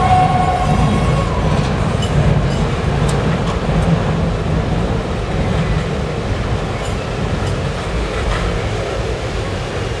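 Freight train tank cars rolling across a steel girder bridge: a steady low rumble and clatter of wheels on the rails, slowly easing. A thin high wheel squeal fades out about a second in.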